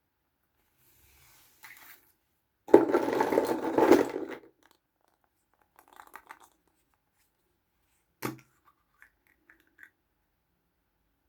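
Hands handling small plastic toys and packaging: a loud burst of scratchy rustling lasting about two seconds, softer rustles, then a single sharp click and a few light taps near the end.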